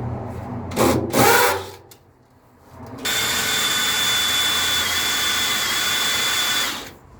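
Some brief handling and rubbing noise, then a power drill running steadily at one speed for nearly four seconds with a constant high whine, stopping abruptly.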